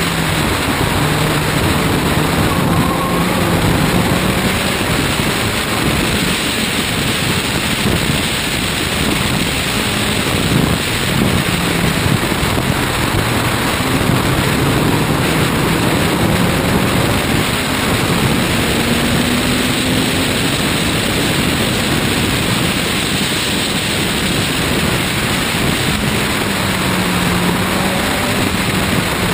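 Race car engine running at track speed, its pitch climbing and dropping back several times as it accelerates and shifts. Heavy wind rush on the camera microphone mounted outside the car largely buries it.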